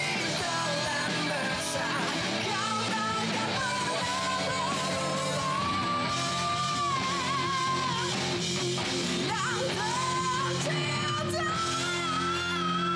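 Opening theme song: a voice singing a melody over guitar-backed, rock-style music.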